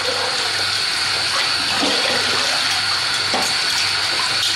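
Kitchen tap running in a steady stream into a full basin of water, splashing as cutlery is rinsed under the flow.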